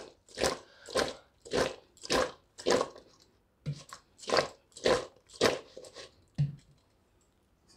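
Whole gunda fruits and raw mango pieces coated in turmeric and salt sliding and tumbling in a stainless steel bowl as the bowl is tossed to mix them, about two swishes a second, stopping shortly before the end.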